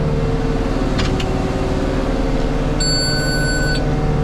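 Oliver 1755 tractor running steadily while the round baler wraps the bale in net. Two short clicks come about a second in. Near the end the baler's in-cab monitor gives one electronic beep lasting about a second, signalling that the wrap is finished and the bale is ready to eject.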